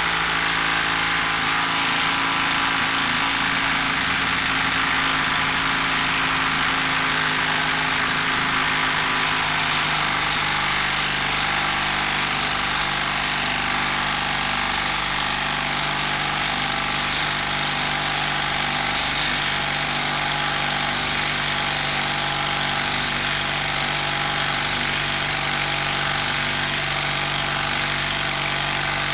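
Milwaukee M12 brushed 12-volt impact driver hammering steadily without a break in reverse, backing a long lag screw out of a log.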